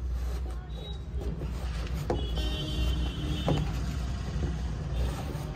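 Handling noise from a foam insole being pushed into a white LED sneaker and the shoe being set on a table, with a few light knocks, over a steady low hum.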